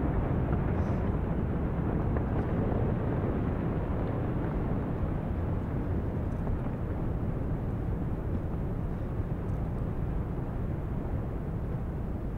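Powder-snow avalanche set off by explosives, rushing down the mountainside: a steady low rumble that eases slightly toward the end.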